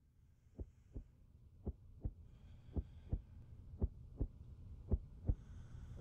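A slow heartbeat: five double thumps about a second apart, over a low hum that slowly grows louder.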